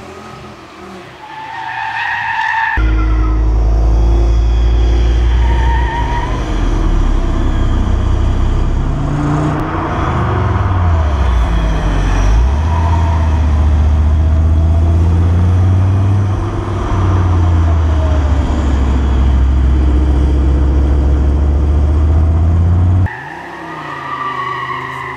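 Audi Coupé engines revving hard as the cars are driven round a track, with tyres squealing. About halfway through the engine note drops, then climbs again as the car accelerates.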